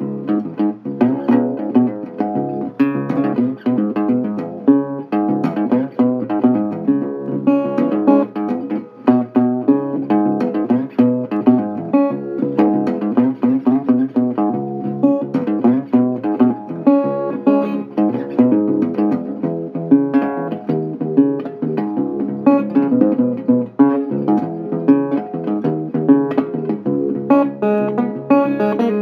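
Guitar music: a busy, continuous run of plucked notes and strummed chords.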